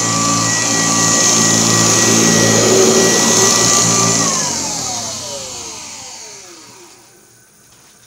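1972 Kirby Classic 1CR vacuum cleaner running steadily. About four seconds in it is switched off, and its motor whine falls in pitch and fades away as the motor spins down.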